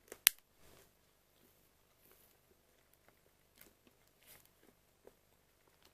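Clear plastic film and tray of a salami pack crinkling and clicking as fingers peel the thin slices apart. There is one sharp click about a third of a second in, then scattered soft rustles and ticks.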